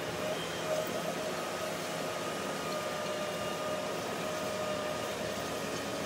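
Diesel Case 721G wheel loader running a front-mounted snowblower attachment while it throws snow, a steady mechanical running sound with a faint high whine.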